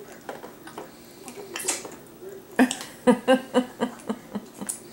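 A baby gnawing and sucking on a chicken drumstick, with wet mouth clicks and smacks. About halfway through, a quick run of short hums or grunts, around five a second, comes from the baby while it eats.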